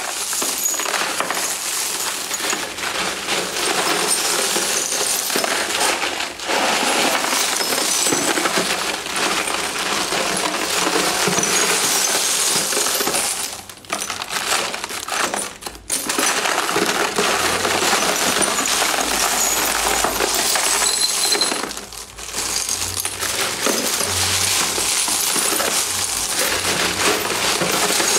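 Hands stirring and scooping through a bin of tumbled crystal stones and small crystal and glass items, with continuous clattering and clinking of stones against each other. There are a few brief pauses.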